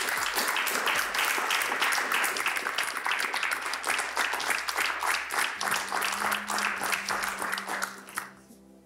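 Studio audience applauding steadily, dying away about eight seconds in.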